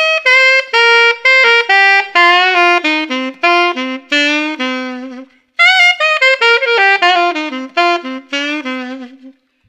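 Solo alto saxophone playing a blues lick on the A minor blues scale: two runs of quick separate notes, each working its way down in pitch, with a short break between them about halfway through.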